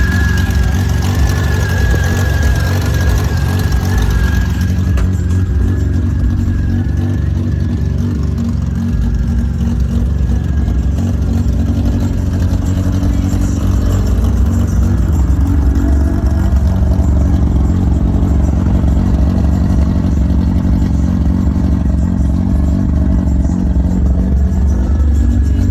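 Vehicle engine running steadily with its exhaust note, after an exhaust leak repair that has only partly cured the leak.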